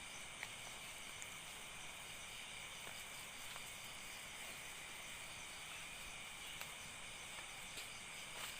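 Night insects such as crickets trilling steadily at a low level, with a few faint ticks.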